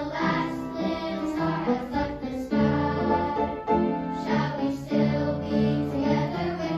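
Children's choir singing with piano accompaniment.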